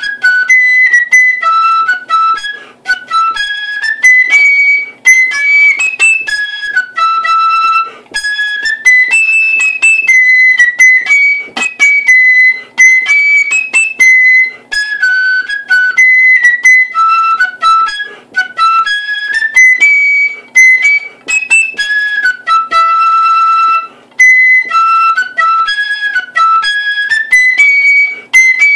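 Flute playing a quick marching-band melody in its high register, with brief breaks between phrases.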